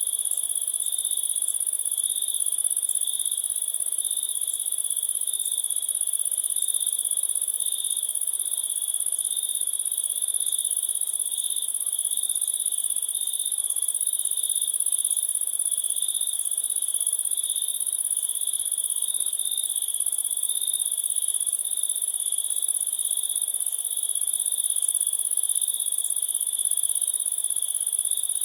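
Crickets chirping without a break: a steady high-pitched trill with a lower chirp that pulses quickly and evenly beneath it.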